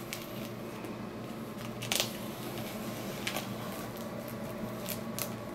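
A knife slicing along the packing tape of a cardboard shipping box, with scraping and a few sharp clicks as the blade catches and the cardboard flexes, over a steady low hum.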